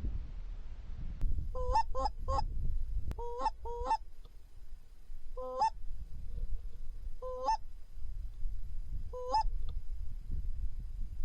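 Goose honks: clear two-note calls that break upward, coming in clusters of two or three, then singly about every two seconds, over a low rumble.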